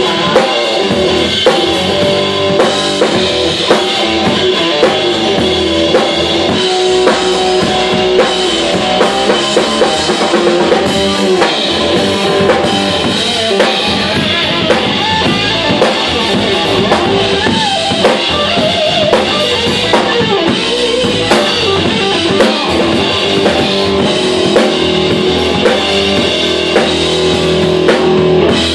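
Live rock band playing an instrumental stretch: drum kit with steady hits, bass guitar and electric guitar, with the guitar bending notes in the middle, and no vocals.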